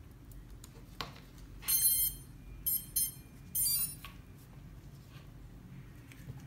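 A click as the battery lead is plugged into a micro FPV quadcopter, then four short, high electronic beeps as the quad powers up and arms its start-up sequence; the first and last beeps are a little longer.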